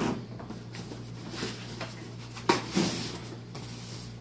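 Cardboard boxes being handled and pulled out of a larger shipping carton: rustling and scraping, with a sharp knock about two and a half seconds in.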